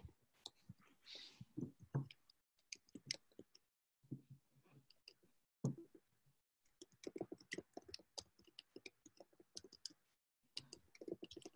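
Faint scattered clicks and light taps of hands working with a rubber stamp and ink pad on painted paper, with small knocks as things are pressed down on the table.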